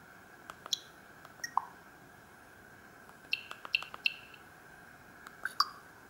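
Keypad buttons of a Samsung GT-C3212 mobile phone being pressed, about ten short clicks: two pairs, a quick run of four, then another pair, as the menu is scrolled and exited.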